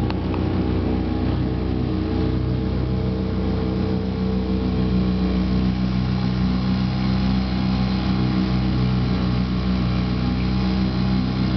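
Outboard motor running steadily at cruising speed on a small open boat under way.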